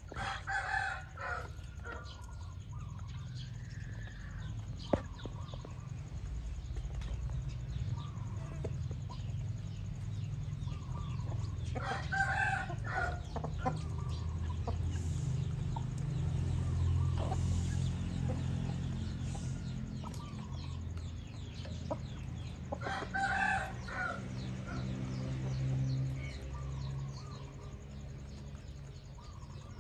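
Chickens at feed: a rooster crows three times, roughly ten seconds apart, while hens cluck softly and beaks tap on the metal feed troughs, over a steady low rumble.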